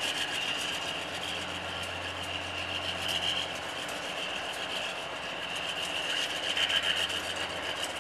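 Pair of GE diesel locomotives running as they pull the train slowly along: a steady low engine hum with a hiss above it.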